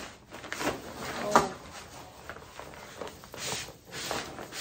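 Camping cot's fabric bed rustling and poles knocking as the poles are slid into the fabric sleeves, with a series of short swishes and one sharp knock about a second and a half in.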